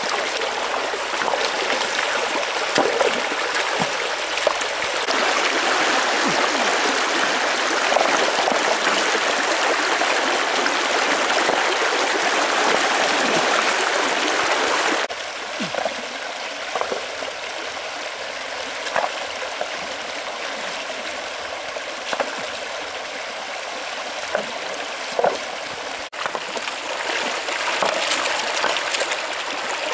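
Shallow rocky stream rushing, with scattered short splashes and knocks as river stones are lifted and set down in the water. The rushing drops suddenly to a quieter level about halfway through.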